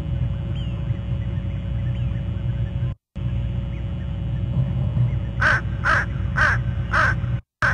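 A crow cawing five times in a quick series, about two calls a second, starting about five seconds in, over a steady low rumble. The sound cuts out briefly twice.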